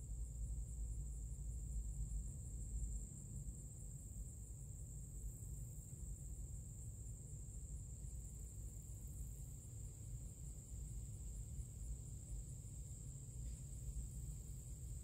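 Steady high-pitched insect calling, such as crickets or cicadas, over a low rumble that is heavier in the first few seconds.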